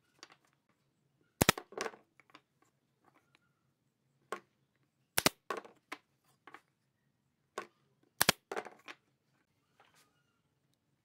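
Wooden knocks and taps as pine boards are set down and fitted together on a wooden workbench, with three sharp loud knocks about a second and a half in, about five seconds in and about eight seconds in, and lighter taps between.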